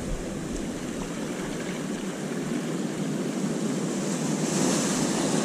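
Sea surf washing against shore rocks: a steady rushing that swells louder near the end.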